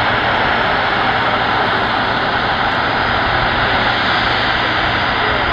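Boeing 747-400 Freighter's four turbofan engines running at taxi power: a steady, even rush of jet noise.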